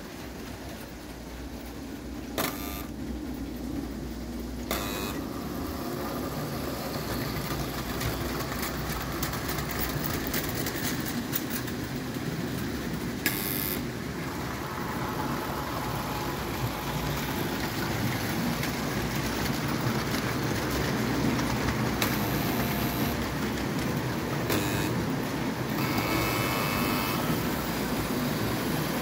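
Buco O-scale tinplate electric model locomotive running on track: a steady motor and wheel rumble that grows gradually louder, with a few sharp clicks.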